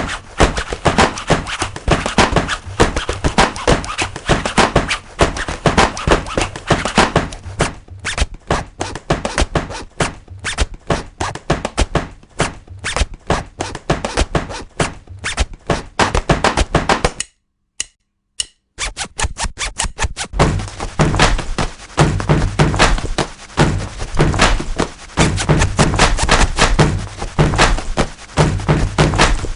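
A rhythmic percussive track of rapid thuds and clicks made from jeans. The hits thin out in the middle, speed up again, break off into silence for about a second and a half about two-thirds through, then come back with a heavier, deeper thump.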